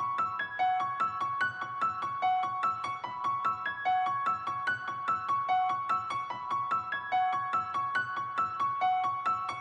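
Background music: a high, repeating melody of quick single notes, about four a second.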